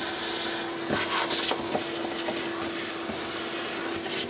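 Vacuum cleaner running with its hose nozzle held against a fuel pump electrical connector, sucking out the sand and debris gumming it up: a steady rush of air over a steady hum, with a brief louder hiss just after the start.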